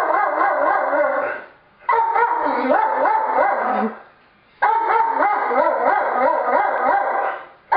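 A dog howling in three long, wavering calls of about two seconds each, with short breaks between them.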